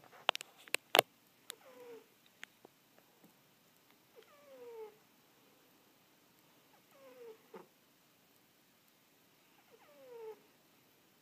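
Sleeping cat snoring, a short squeaky note falling in pitch on each breath, four times about every three seconds. A few sharp clicks in the first second.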